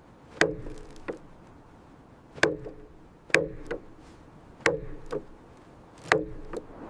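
Wood being chopped: five heavy blows at uneven intervals into a log, most followed about half a second later by a lighter blow, each strike with a brief ringing note.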